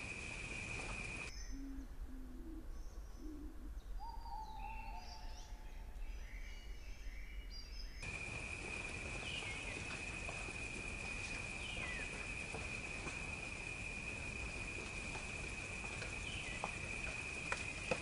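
Wild bird and insect ambience: a steady high-pitched insect drone with a short falling bird whistle every few seconds. About a second and a half in, it gives way for several seconds to a quieter passage of short low hooting calls and scattered bird chirps, then the drone returns.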